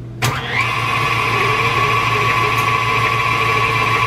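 Electric mixer switched on with a click, then its motor running steadily with a constant whine as it mixes cookie dough.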